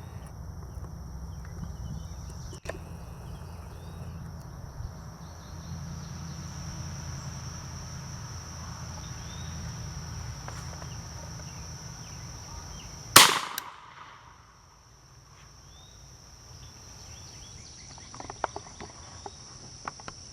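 A single .410 shotshell (Remington #5 shot) fired from a New England Firearms Pardner 20-gauge single-shot through a ShortLane 20-to-.410 sub-caliber adapter: one sharp shot about two-thirds of the way in. A steady high-pitched insect drone runs underneath.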